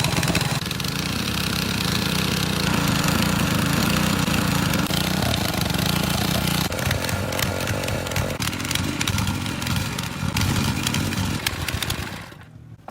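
Small gasoline engine running steadily, then stopping near the end.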